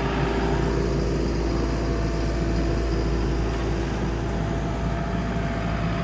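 New Holland skid steer's diesel engine running steadily at raised throttle, heard close up, with a steady whine over it from about half a second in to about four seconds in.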